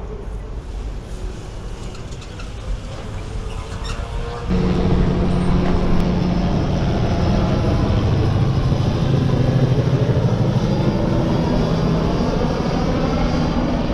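Motor vehicle engine noise that jumps sharply louder about four and a half seconds in, then holds a steady low drone.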